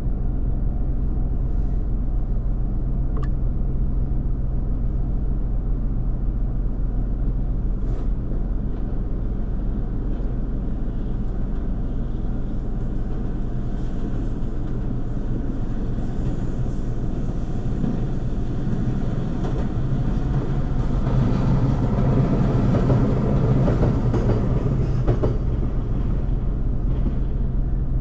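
Nishitetsu 600 series two-car electric train passing over a level crossing, heard from inside a waiting car. The train noise builds from about halfway through, is loudest about three quarters of the way in, then eases off, over a steady low hum from the car's idling engine.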